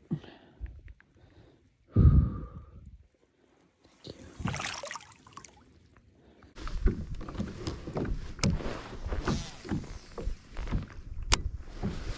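A bass being released over the side of a kayak: a sharp thump about two seconds in, water splashing and swirling as the fish swims off, then irregular knocks and water sloshing against the kayak hull as the angler moves about in the seat.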